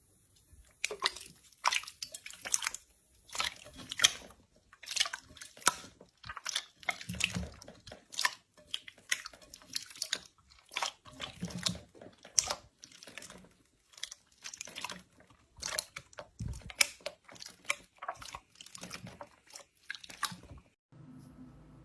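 Slime being squeezed and worked by hand: an irregular run of wet, crackling pops and squelches, several each second.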